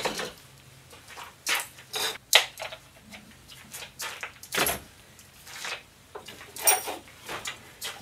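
Scattered sharp plastic clicks and knocks as a Black & Decker 20-volt lithium-ion battery pack is handled and slotted into its charger.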